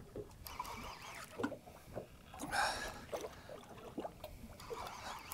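Water lapping against a boat's hull, with scattered light knocks and clicks and a slightly louder wash about halfway through.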